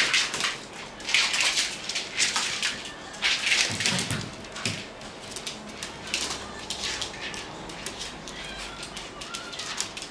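A Shiba Inu puppy and a small white dog playing, their claws scrabbling and skittering on a smooth floor in quick bursts, busiest in the first half.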